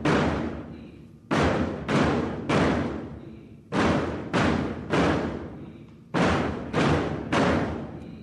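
A group of Portuguese bombo bass drums struck together in unison. The beats come about half a second apart in short groups of three or four, with pauses between the groups, and each beat rings out and fades in the hall.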